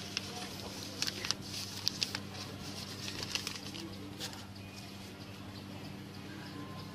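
Brown wrapping paper and banana leaf crinkling and rustling as a rice parcel is folded up by hand: a run of light crackles in the first few seconds, quieter after, over a low steady hum.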